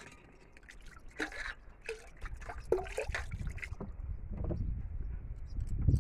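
Water trickling and splashing as it is poured from a plastic bottle into a steel pot of curd being churned, with a few small clicks and knocks.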